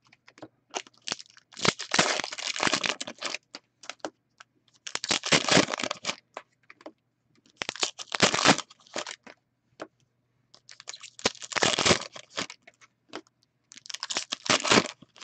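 Trading card pack wrappers being torn open and crinkled in about five short bursts, roughly every three seconds, with light clicks of card handling in between.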